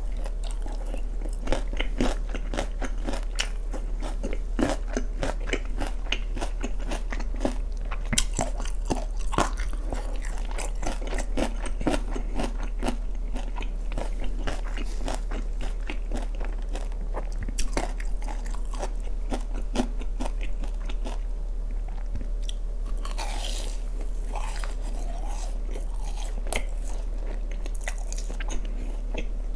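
Close-miked chewing of sauce-glazed fried chicken: wet, crackling crunches of the fried coating, irregular and continuous, with mouth and biting sounds.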